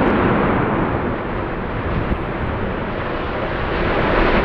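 Steady rolling rumble of a large power-station building collapsing in an explosive demolition, just after the blast.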